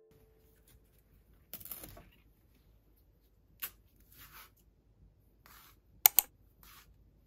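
A banana being handled and peeled by hand: a few soft rustles and tearing sounds of the peel, with a light click, and near the end two sharp clicks close together, the loudest sounds.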